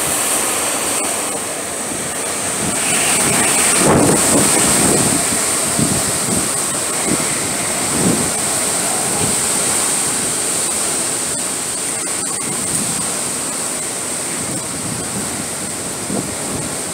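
Hurricane wind and driving rain: a steady rushing noise that swells in a gust about four seconds in.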